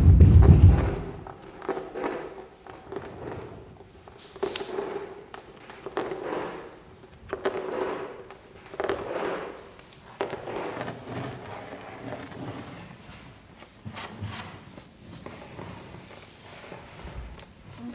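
Improvised performance sounds in a room: a heavy low thump right at the start, then scattered knocks and taps, some with short humming tones, at irregular intervals.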